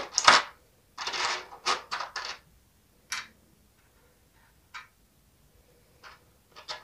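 Light plastic clicks and rustling as tiny toy food pieces are picked out of a clear plastic blister tray and set into a miniature basket. There is a cluster of rustles and clicks in the first couple of seconds, then a few single ticks spaced out.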